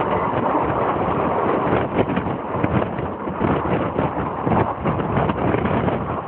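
Passenger train running along the track: the steady noise of the moving train with irregular knocking from the wheels and carriages, and wind buffeting the microphone.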